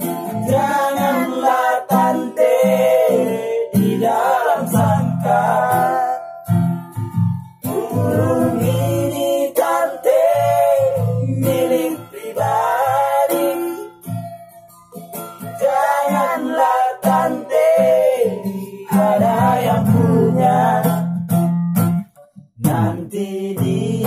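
A man sings a Batak song to his own strummed acoustic guitar, holding and bending long vocal notes over the chords, with a brief pause near the end.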